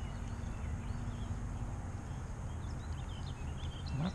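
Outdoor streamside ambience: a steady low rumble under faint, scattered bird chirps, with a faint low hum over the first couple of seconds.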